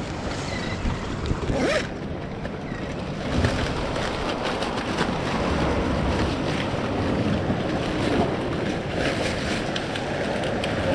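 Surf washing against jetty rocks and wind buffeting the microphone, with scattered rustling and small clicks as a soft cooler bag is rummaged through.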